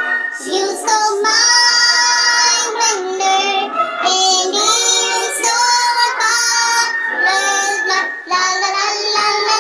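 High-pitched singing over music, sung in long held notes that step from pitch to pitch.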